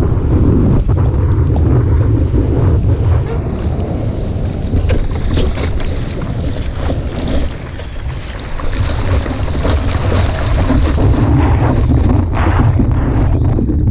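Loud wind buffeting and rushing ocean water on an action camera's microphone in big surf, with a brief lull about seven and a half seconds in.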